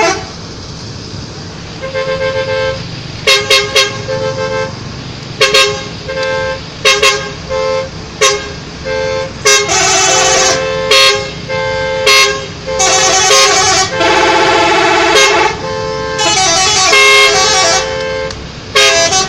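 Indonesian bus telolet horn playing in multiple tones: short loud toots about every second or two, then longer runs of changing notes in the second half, over a low engine rumble.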